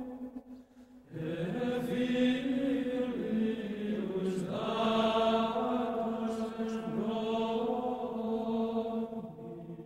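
Soundtrack music of chanting voices holding long sustained notes, breaking off briefly in the first second and then resuming, fading out near the end.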